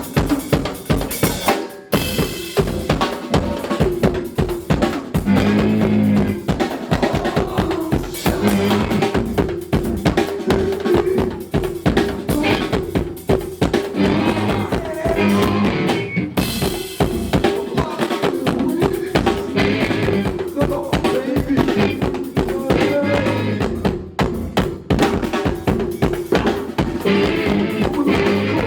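A band playing music driven by fast, busy drumming on a drum kit, with snare hits, rimshots and bass drum under a sustained pitched part; the music drops out for a split second twice, about two seconds in and near the middle.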